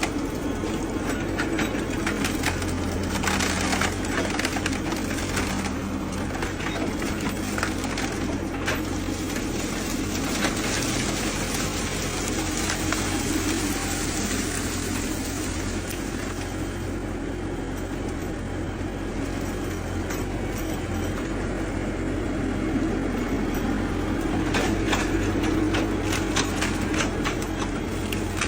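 Bamboo being cut: irregular cracks and snaps over a steady low drone.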